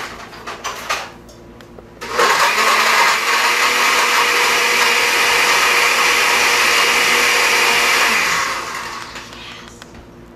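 A few light knocks, then a countertop blender switched on about two seconds in, running steadily for about six seconds as it blends watermelon into a slushy, then switched off and winding down.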